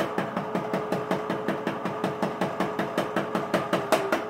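Electric can opener running as it cuts around the rim of a can of black beans: a steady motor hum with even ticking, about six or seven ticks a second, as the can turns.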